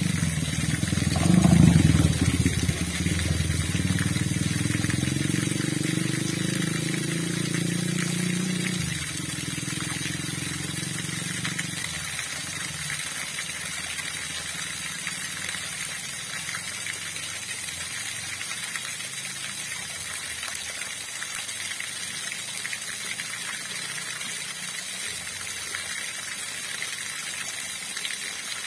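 Steady rushing of flowing river water. An engine passes over it at first, loudest about two seconds in and fading away by about twelve seconds in.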